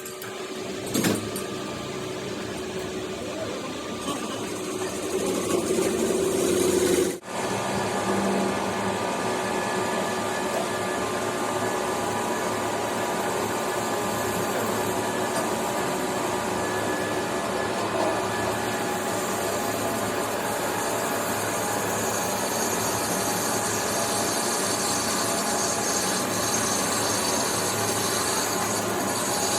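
Steady metalworking machine and tool noise, with an abrupt change about seven seconds in.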